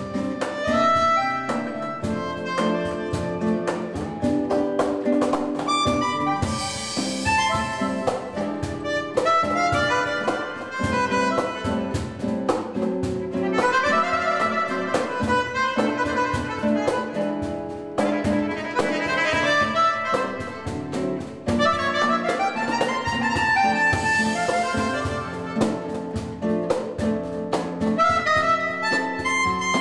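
Live acoustic jazz: a vibrandoneon, a keyboard-fingered reed wind instrument, plays sustained melody lines over acoustic guitar chords and light percussion. A high shimmering percussion wash swells up twice.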